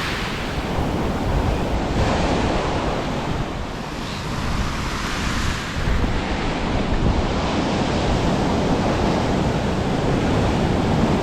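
Surf washing onto a beach, a steady rushing noise that swells and eases, with wind buffeting the microphone.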